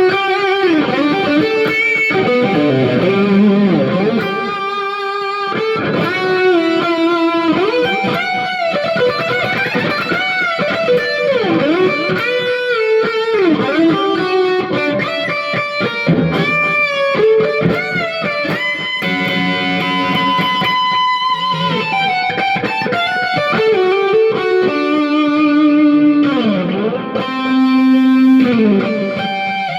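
Electric guitar played through a Boss GX-100 multi-effects processor: a melodic lead line of held notes with many string bends.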